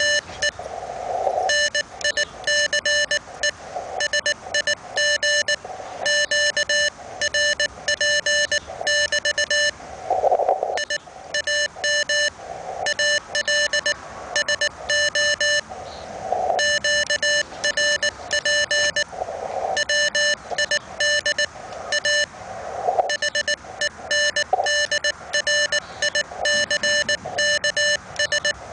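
Morse code from a Hendricks PFR-3A QRP transceiver: a single buzzy tone keyed on and off in dots and dashes as two low-power stations exchange CW, with short patches of receiver hiss in the pauses.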